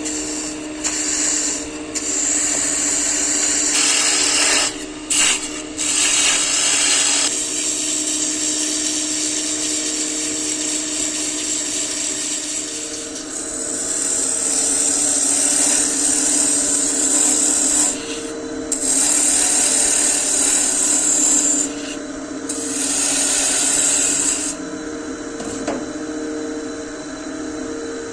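Wood lathe running with a steady motor hum while a tool works the spinning wood in spells, the hiss of cutting starting and stopping several times.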